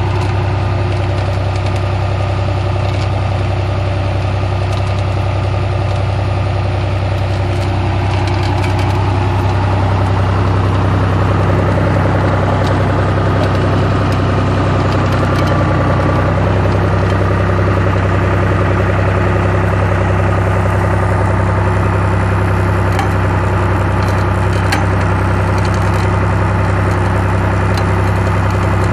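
Tractor engine running steadily while driving a PTO forestry winch, with a strong low hum. It grows a little louder and its note shifts partway through, with a few faint clicks later on.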